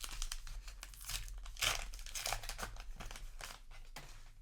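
Crinkling and rustling of paper booster-pack wrappers and trading cards being handled, a run of irregular crackles.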